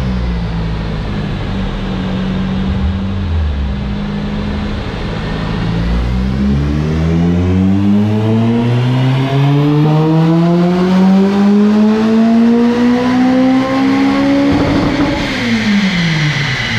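Honda engine on a chassis dyno during a power run, fitted with a new aftermarket exhaust. It runs low for the first few seconds. From about six seconds in, it pulls at full throttle, its pitch climbing smoothly for about eight seconds, then the throttle closes near the end and the revs fall away.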